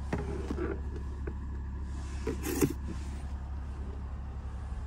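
Steady low hum of a car cabin, with a light click at the start and a small tick about a second in, as the centre armrest console is handled. Faint murmured voices come through briefly twice.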